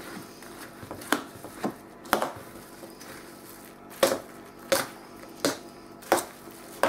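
A metal spoon stirring a wet muesli-and-berry mixture in a metal baking tray, knocking and scraping against the tray with sharp clinks roughly once a second.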